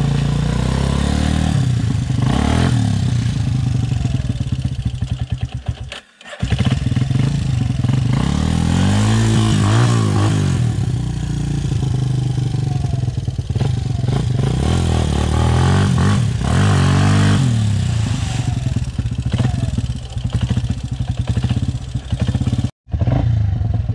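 Yamaha Raptor 350 quad's single-cylinder four-stroke engine revving up and back down again and again as it is ridden through deep water, with the biggest rev swells around the middle and again about two-thirds through. The sound breaks off abruptly twice, about a quarter of the way in and just before the end.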